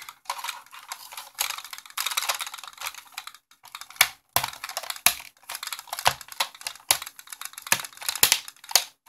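Hands fitting and pressing a padded leatherette face cushion onto a plastic smartphone VR headset: rustling and scraping, with a series of sharp plastic clicks and taps through the second half.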